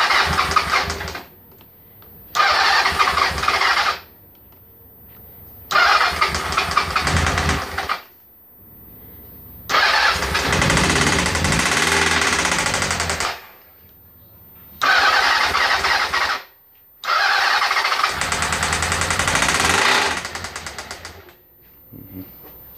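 Electric starter cranking a 1997 Honda CB750's air-cooled inline four in six separate bursts, each lasting one to four seconds with short pauses between. The engine is not running on its own, so it is being cranked repeatedly on choke after its spark plugs were cleaned; after the last burst it slows and dies away.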